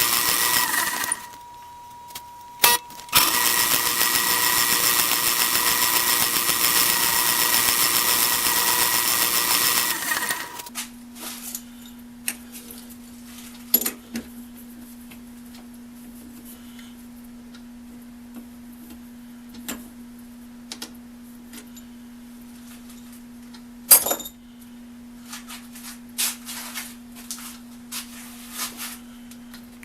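A workshop power tool running with a steady whine, stopping briefly about a second in, then running again until about ten seconds in. After it shuts off there is a low steady hum with scattered clicks and taps of metal being handled.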